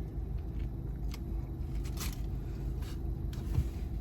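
A person chewing a bite of a fast-food bacon cheeseburger close to the microphone, with a few short wet clicks and smacks of the mouth, over a steady low hum.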